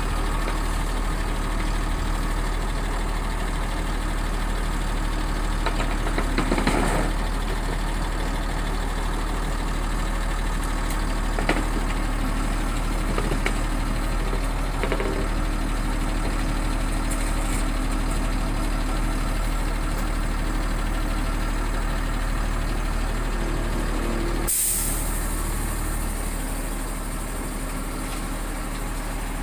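Hyundai mini excavator's diesel engine running steadily as the machine works its way off a flatbed truck deck. About seven seconds in there is a short louder rumble, and near the end a sudden sharp hiss that fades out over a second or two.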